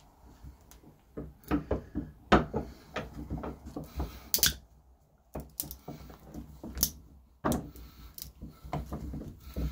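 Small bolt croppers biting and twisting on an Otto Lock's strap of thin steel bands and Kevlar: an irregular run of metal-on-metal clicks and knocks that starts about a second in, with two short pauses.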